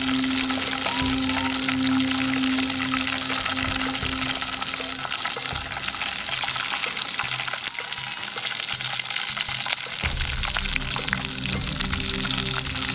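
Sliced garlic frying in hot oil in a wok: a steady, dense crackling sizzle.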